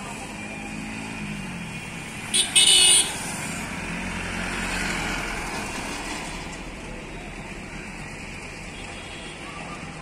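A road vehicle passing, its noise swelling to a peak about five seconds in and fading away, with a short loud hiss in two quick parts about two and a half seconds in.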